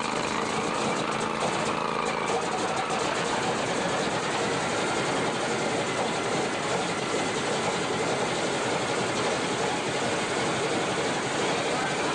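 B-17's number two Wright R-1820 Cyclone nine-cylinder radial engine catching and running after years of sitting, a loud steady rough noise with irregular popping in the first couple of seconds.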